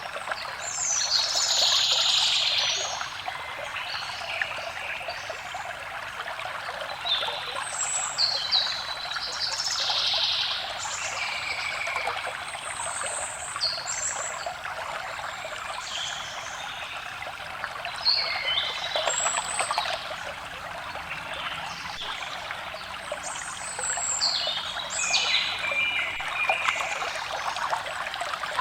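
Water trickling and running steadily, like a small stream, with forest birds chirping and singing in short, repeated calls throughout.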